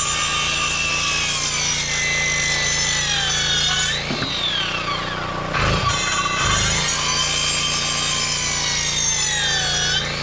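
Black & Decker circular saw cutting through wooden 1x8 boards twice: its whine under load spins down about four seconds in, winds back up just before six seconds for a second cut, and spins down again near the end. A generator runs steadily underneath, powering the saw.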